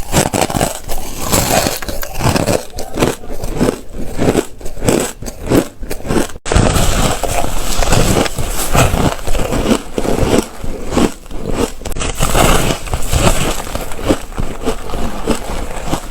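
Ice being bitten and chewed close to the microphone: loud, continuous irregular crunching and cracking, cutting out for an instant about six seconds in.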